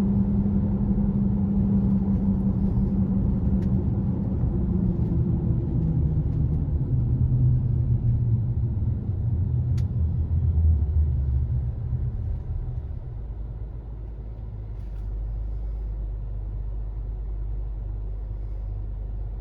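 2018 Honda CR-V running down the road with a loud hum that drops steadily in pitch as the vehicle slows, then fades about twelve seconds in, leaving a quieter low rumble. This is the persistent speed-dependent hum that the owner suspects may come from a bad wheel hub assembly or bad tyres.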